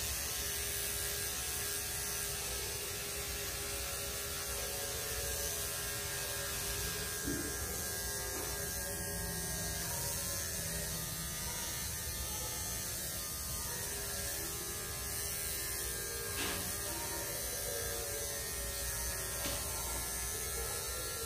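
Small cordless electric dog clipper running with a steady buzzing hum while trimming a schnauzer's head and face, with a couple of brief knocks.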